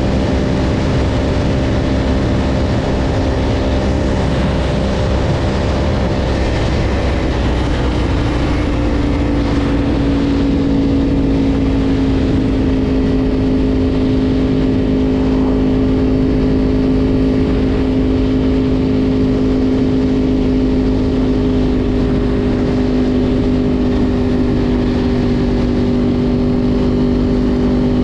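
Yamaha R1 sport bike's inline-four engine running at a steady road speed over a constant rush of noise. The engine note shifts about eight seconds in, then holds steady.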